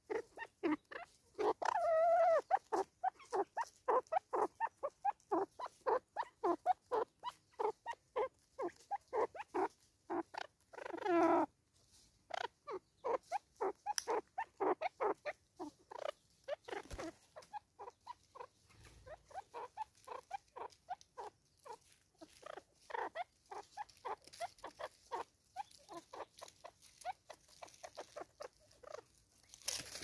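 Southern red-billed hornbill giving its clucking call: a long series of short clucks, about three a second, broken by a longer drawn note about two seconds in and another about eleven seconds in.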